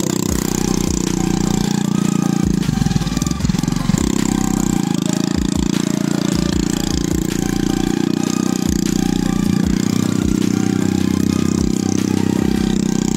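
Small single-cylinder scooter engine running steadily through a straight-through aftermarket Akrapovic-style exhaust with its dB killer removed. A brief burst of clattering comes about three seconds in.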